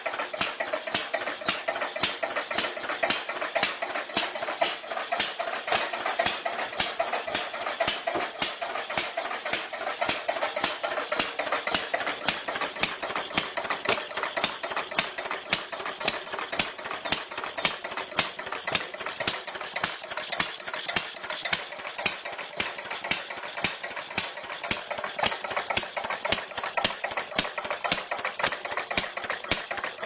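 A clunky old engine idling, running with an even, rapid clatter of knocks, several a second, and little deep rumble.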